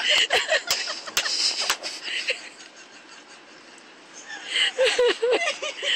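Breathy, wheezing laughter from people, dying down after about two seconds, with a few sharp clicks; voices start again near the end.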